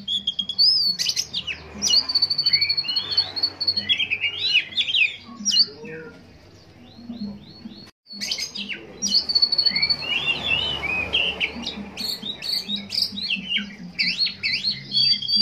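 Caged male Oriental magpie-robin (kacer) singing a rapid, varied song of quick chirps and sweeping whistles with a few long held whistles, in breeding condition (birahi). The song eases off about halfway through, breaks off briefly, then resumes just as busy.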